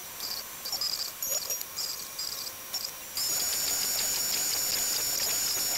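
DeWalt router spindle on a Shapeoko 3 CNC running a 1/8 inch bit, cutting the first pass in a wooden project box: a high whine over a cutting hiss. It is uneven for the first three seconds, then steady and louder from about three seconds in.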